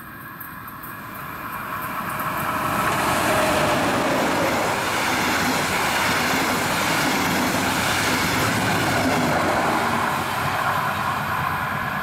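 Electric locomotive hauling a rake of double-deck regional coaches past at close range: the rolling noise of wheels on rail builds over the first few seconds, stays loud while the coaches go by, and eases off near the end.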